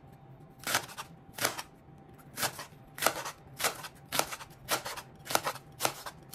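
Kitchen knife slicing cabbage into thin shreds on a metal cutting board: about ten crisp cuts, each a short sharp crunch ending in a knock on the board, coming roughly every half second to a second.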